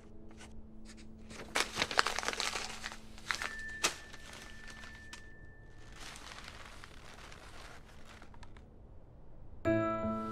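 Sheets of paper being crumpled and torn in irregular bursts, loudest in the first half. Near the end, music with bell-like mallet notes comes in.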